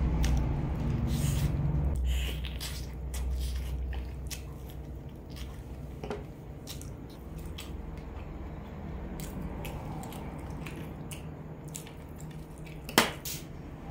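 Close-miked eating sounds: chewing and biting fried chicken with crispy skin, with wet smacking and many short clicks. A sharper click near the end.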